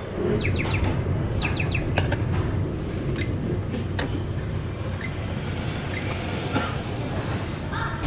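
Electronic chime from a sushi restaurant's shinkansen-style delivery lane: three quick groups of three or four short, bright, slightly rising notes in the first two seconds, over a steady low rumble. A few light clicks follow.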